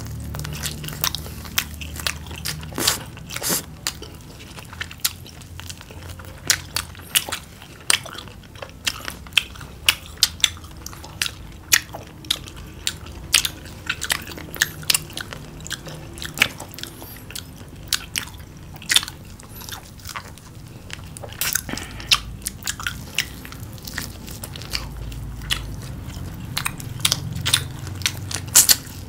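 Two people biting and chewing battered fried chicken: many sharp, irregular crunches of crisp batter breaking, with chewing in between.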